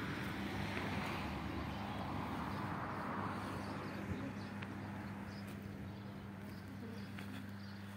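Case 570ST backhoe loader's diesel engine idling with a steady low hum, under a rushing noise that fades away by about halfway through.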